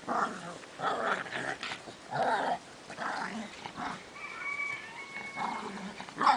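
Dog barking, a string of short rough barks with some growling between them, and a thin high whine a little past the middle; the loudest bark comes near the end.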